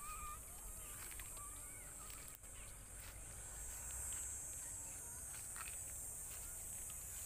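Metal spatula stirring and turning duck meat and chopped tomatoes in a steel pot, giving a few faint scrapes and clicks over a steady high hiss. Birds chirp faintly in the first couple of seconds.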